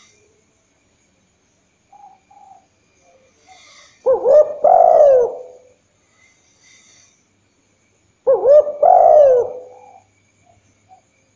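Spotted dove cooing twice: a short phrase of a few gliding, wavering notes about four seconds in, and another about eight seconds in.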